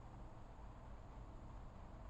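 Faint, steady outdoor ambience: an even hiss over a low rumble, with no distinct calls or events.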